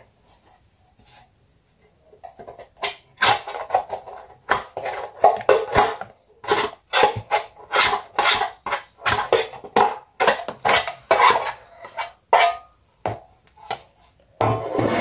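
A spoon scraping and knocking against a cake tin and a mixing bowl in a quick, uneven run of clinks and scrapes. It starts about three seconds in, after a brief lull.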